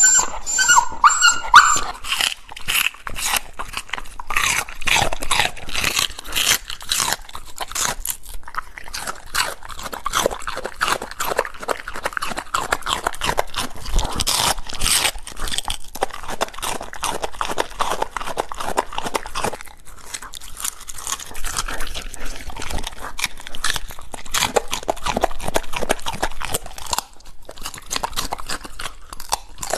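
Border collie whining briefly, then crunching and chewing raw vegetables close to a clip-on microphone: a dense run of crisp crunches with short pauses between bites.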